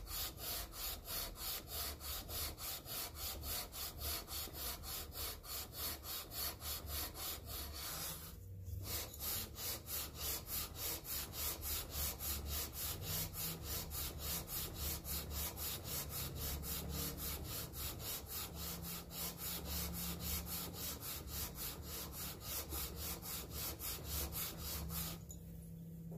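Aluminium cylinder head of a Kawasaki FH721D V-twin being lapped by hand on an abrasive sheet over a flat plate. It rasps in steady back-and-forth strokes, about three a second, with a short break about eight seconds in, and it stops just before the end. The head deck is badly warped and is being ground flat.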